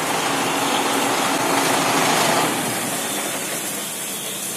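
Farm machinery running steadily: a rushing hiss over a faint low hum, easing off a little after about two and a half seconds.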